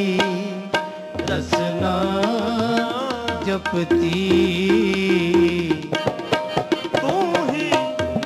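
Sikh kirtan: a singer draws out the words of the shabad over harmonium and tabla, with tabla strokes throughout.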